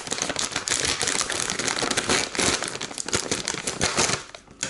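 Foil-lined plastic food bag crinkling loudly as it is gripped and cut open with scissors, with a short lull near the end.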